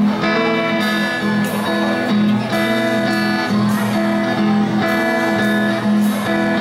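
Live band guitars, amplified through a PA, playing an instrumental chord intro with held notes that change about every half-second to second, before the vocals come in.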